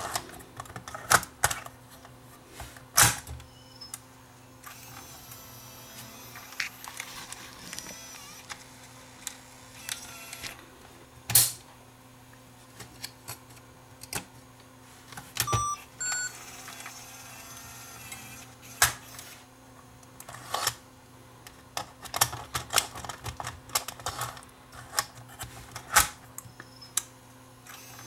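Irregular sharp clicks and snaps from the metal cassette compartment and catch of a Sony CCD-TRV128 Hi8 camcorder as it is opened, closed and handled. A few brief high tones come near the middle, over a faint steady hum.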